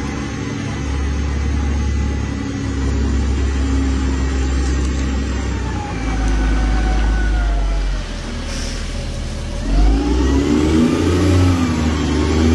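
Heavy construction machine's diesel engine running, its pitch sagging and rising again as it revs under load, louder for the last few seconds.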